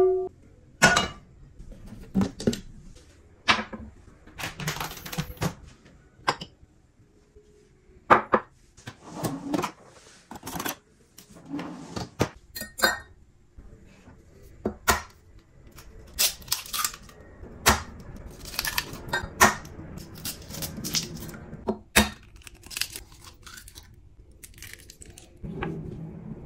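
Kitchen handling sounds: a string of irregular sharp taps, clinks and knocks as eggs are cracked into a glass measuring jug, their shells handled and broken open, with the glass and a metal whisk clinking.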